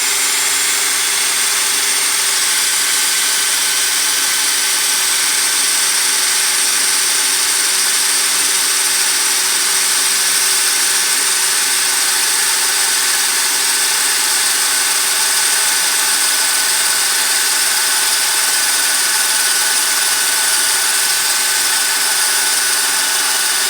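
Power drill running steadily under load for a long stretch, drilling out spot welds in the car body's sheet metal.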